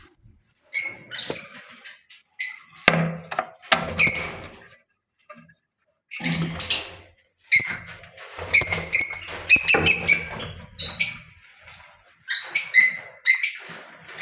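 Lovebirds chirping in rapid, high-pitched bursts that come in clusters with short pauses between them.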